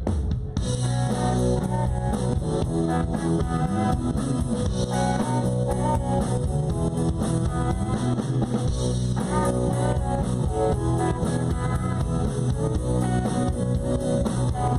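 Live rock band playing an instrumental intro on electric guitar, bass and drum kit. The band kicks in suddenly at the very start and plays steadily, with no singing.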